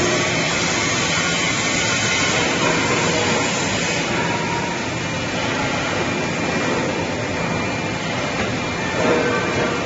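Steady rushing machinery noise from an automatic circular welding machine for stainless steel beer kegs and the workshop around it, with a few faint steady tones under the hiss.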